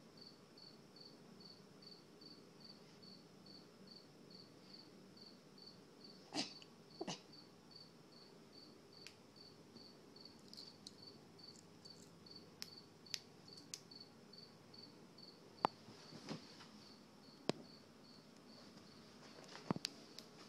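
Faint, steady insect chirping: a short high chirp repeating about four times a second, with scattered sharp clicks and taps.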